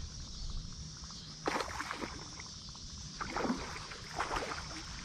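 Water splashing in short sudden bursts, about one and a half seconds in and again a couple of times near the end, over a steady low rumble: a hooked bass thrashing at the surface as it is reeled in to the bank.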